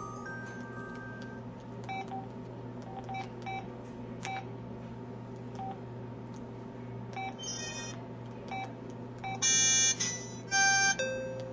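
KTF-X3500 mobile phone playing its built-in sound effects: a short rising run of beeps, then a string of single short key beeps with button clicks, and near the end two loud, buzzy electronic tones followed by a lower steady tone. A steady low hum runs underneath.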